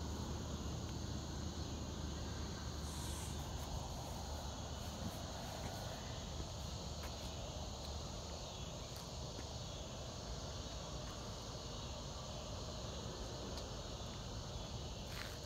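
Steady outdoor chorus of insects with an even, unbroken pitch, over a faint low rumble.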